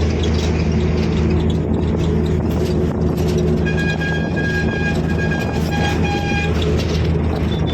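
A moving vehicle running with a steady low hum; a horn sounds about four seconds in and holds for nearly three seconds.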